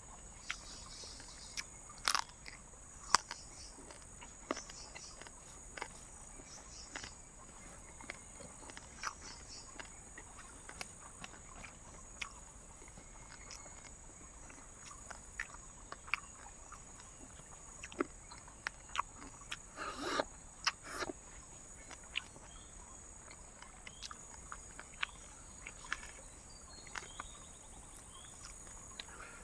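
Someone biting and chewing crispy roasted pork, irregular crunches with a denser run about twenty seconds in, over a steady high drone of night insects.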